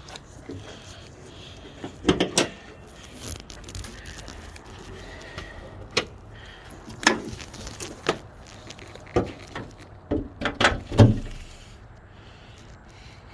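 Irregular clunks and clicks of a Honda Element's hood being unlatched, lifted and propped open, with the loudest cluster of knocks toward the end.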